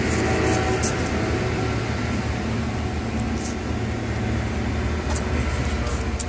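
A steady low mechanical hum, with a few faint ticks on top.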